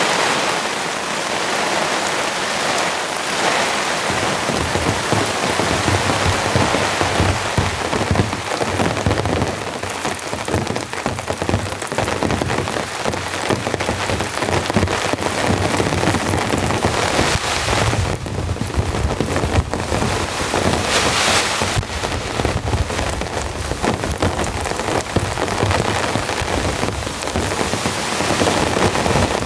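Heavy rain pouring steadily onto a nylon tarp and tent, a dense, even hiss of drops.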